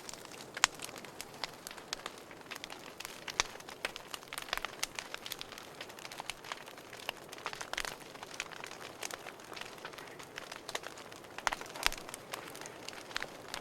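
Irregular crackling and snapping, many small sharp clicks at uneven intervals over a faint steady hiss.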